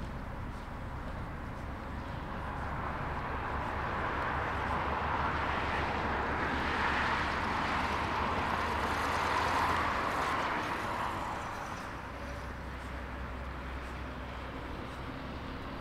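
A vehicle passing by: a rushing noise that swells for several seconds, peaks in the middle, then fades away about three quarters of the way through.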